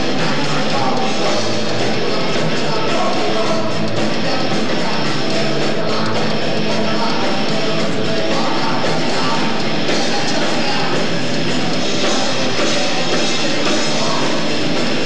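A live rock band plays loud, heavy music without a break: electric guitars, bass guitar and a drum kit.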